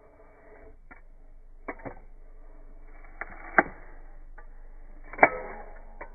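Pruning shears clicking and snapping as they work on branches: a series of sharp clicks, with two louder snaps about a second and a half apart in the middle and toward the end.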